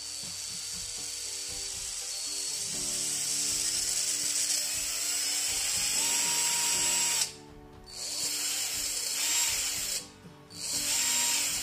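Bare brushed DC motor from a 12 V cordless drill, run straight off the drill's battery at full speed: a steady high-pitched whine. It cuts out twice, briefly, about seven and ten seconds in, and spins back up each time.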